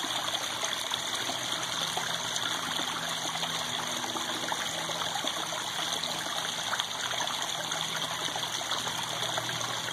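Steady trickling and splashing of running water feeding a backyard koi pond.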